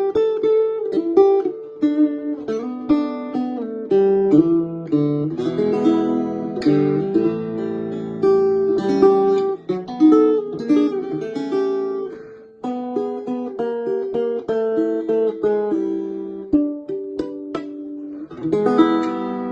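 1950s Cremona (Luby) folk/blues parlor guitar being played: a run of picked notes and chords, with a brief drop about twelve seconds in and a full strummed chord near the end.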